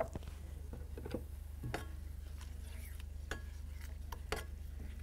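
A cooking utensil stirring crushed tomatoes into sautéed onion and garlic in an electric skillet, with a few scrapes and knocks against the pan over a steady low hum.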